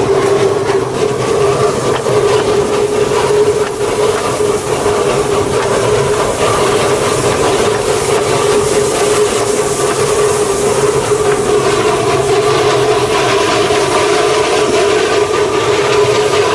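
Narrow-gauge steam locomotive under way: the steady running noise of its wheels and coupling rods on the track, with a constant hum.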